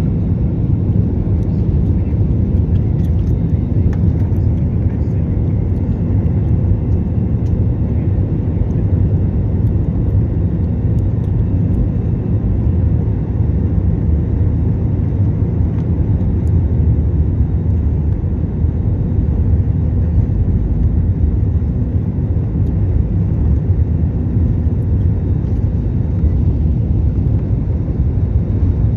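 Jet airliner taking off: a steady low rumble of engines and runway, holding even throughout.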